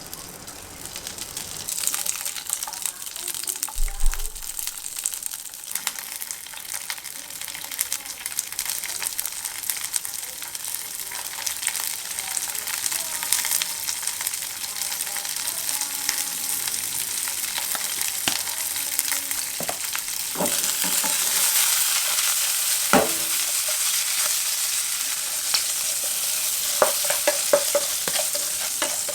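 Ribeye steak sizzling in a hot pan, a steady hiss that grows louder about twenty seconds in, with a few sharp knocks against the pan.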